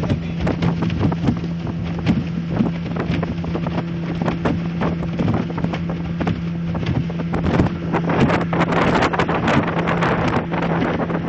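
Motor of a small open boat running at a steady pitch while under way, with wind buffeting the microphone and frequent knocks of the hull on the water. The wind and splashing grow louder about eight seconds in.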